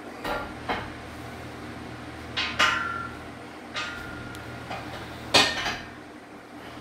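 Metal clanks and knocks from a steel wall-mounted folding squat rack being handled: about six separate strikes, two of them ringing briefly, with the loudest a little past five seconds in.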